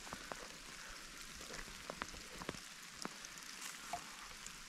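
Rain falling: a steady fine hiss with scattered sharp ticks of drops.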